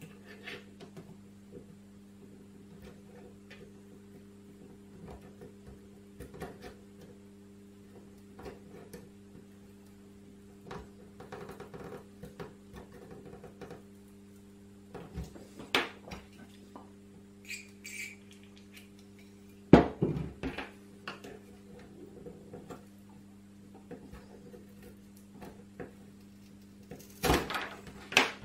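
A thin tool scraping and prying under the glued badge of a Commodore C64C's plastic top case: soft scratches and small clicks, a sharp click about twenty seconds in and a few more near the end. A steady low hum runs underneath.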